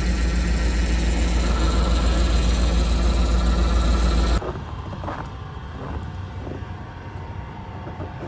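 A heavy engine running steadily with a deep, even drone, which cuts off abruptly about four seconds in, leaving quieter outdoor background with a few faint knocks.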